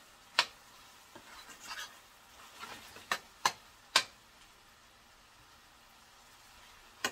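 Metal spoon clicking against a frying pan, once near the start and three times in quick succession about three to four seconds in, with soft stirring scrapes between. Underneath is a faint sizzle of salt cod and vegetables sautéing in oil.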